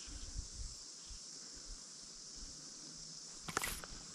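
Quiet outdoor ambience at the water's edge: a steady high hiss with soft low rumbles, and a brief clatter of sharp clicks about three and a half seconds in.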